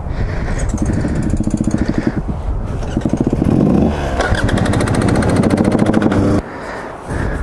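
Dirt bike engine running close by at low speed, the throttle opened and closed so the engine note rises and falls in pulses; it drops off sharply about six seconds in.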